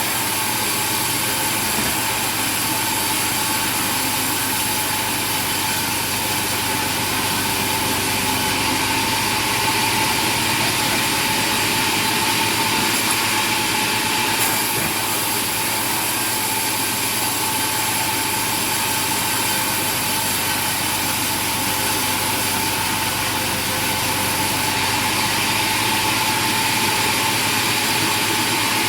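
Steady mechanical running noise from an engine or motor-driven machine, with a faint steady whine.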